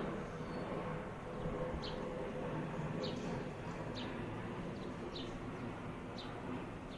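A bird repeating a short, high chirp that falls in pitch, about once a second, over a steady low rumble.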